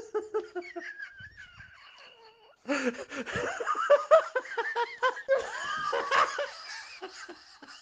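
Laughter: short rhythmic bursts at first, then, from about three seconds in, louder and fuller laughter from several voices at once.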